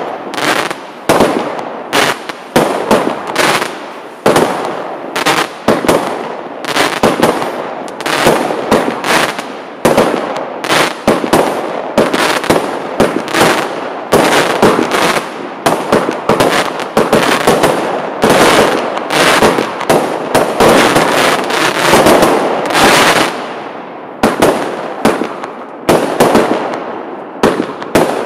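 Lesli 'I Love Mama' compound firework battery firing shot after shot: sharp launch and burst reports, roughly one to two a second, each trailing off in a short rumble.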